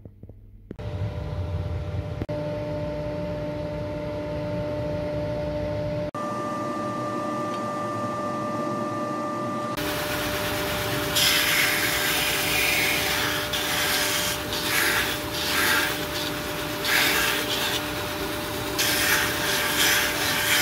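Belt sander motor running, then a wooden handle being ground against the moving sanding belt: a rasping noise from about ten seconds in that swells each time the wood is pressed to the belt, over the steady hum of the machine.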